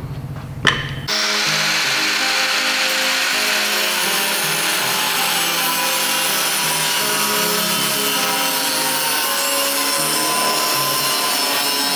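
Angle grinder running steadily with its disc cutting into a steel plate on a car's quarter panel, a harsh grinding that starts about a second in, as a welded-on pulling plate is cut off the straightened panel. Background music plays under it.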